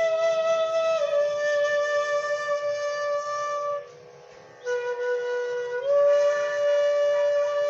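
Raag Hansadhwani played slowly on a flute as long held notes over a faint steady drone note. The melody steps down about a second in, breaks off briefly near the middle, then resumes on a lower note that rises to a higher one about six seconds in.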